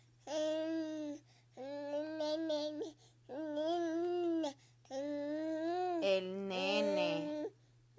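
Baby vocalizing in drawn-out, sing-song cries, five phrases of about a second each with short pauses between them. Near the end a lower adult voice joins in over the last phrase.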